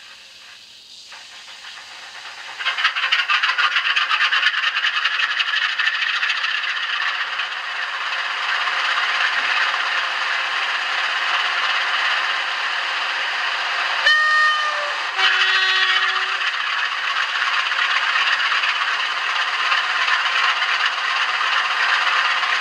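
Sound decoder of an N gauge Graham Farish Class 47 model playing a diesel locomotive's engine sound through its tiny speaker. The engine sound comes in suddenly about three seconds in and runs steadily. Around the middle comes a two-tone horn, a higher note and then a lower one.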